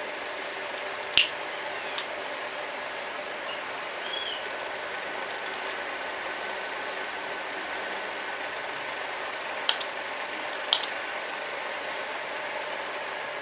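Handheld corner-rounder punch snapping shut as it cuts the corners of paper greeting cards: three sharp clicks, one about a second in and two a second apart late on, over a steady hiss.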